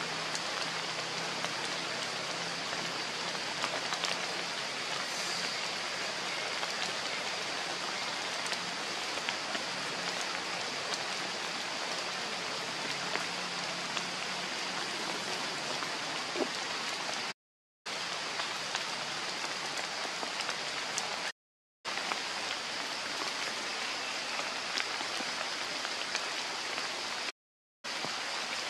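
Steady rain falling on forest leaves, an even hiss with scattered drip ticks; it cuts out completely three times for a fraction of a second.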